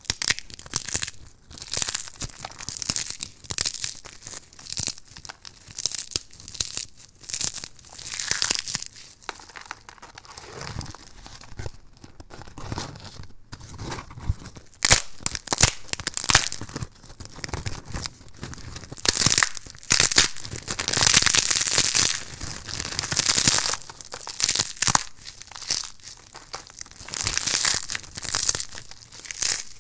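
Crispy, thin soap slices being broken and crumbled by hand: crackling and snapping in irregular bursts, loudest in a stretch about two-thirds of the way through.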